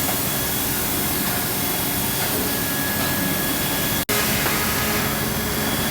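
Pallet-notching machine running: a steady, even mechanical noise with a faint hum under it, cutting out for an instant about four seconds in.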